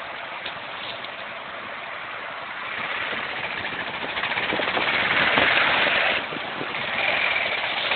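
Dirt bike engine running at low speed as the bike crawls through a muddy creek crossing. It grows louder as the bike comes closer, drops off sharply about six seconds in, then picks up again.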